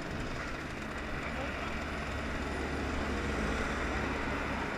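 Derbi Senda two-stroke motorcycle engine idling steadily, with road traffic passing alongside.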